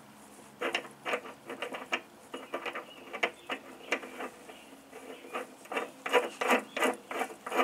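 Ratchet wrench clicking in short, uneven runs as the socket is turned on the blade-spindle nut of a mower deck.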